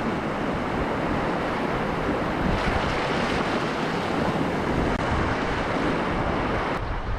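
Steady rush of river whitewater, with wind noise on the microphone; the sound changes abruptly near the end.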